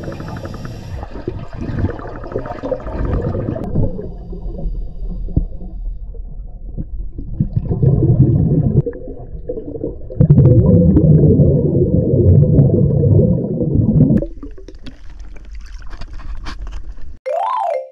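Underwater bubbling and water noise in a diving pool, muffled and rumbling, louder for a few seconds about ten seconds in. A few seconds before the end the sound turns thin and crackly with fine clicks as the camera comes out of the water, and a short rising-then-falling tone follows.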